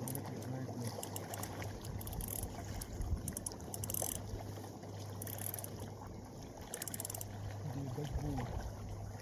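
Water lapping and sloshing at the shoreline over a steady low hum, with a few short high hisses.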